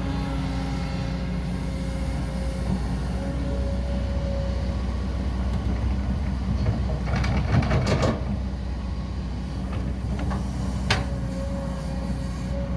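Radio-controlled excavator and dump truck working, their motors giving a steady hum with a thin whine. A burst of rattling comes around seven to eight seconds in, and a single sharp click a few seconds later.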